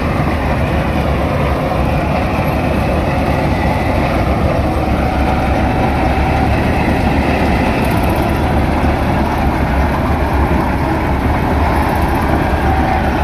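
Standard combine harvester running while harvesting rice, its engine and threshing machinery making a loud, steady drone.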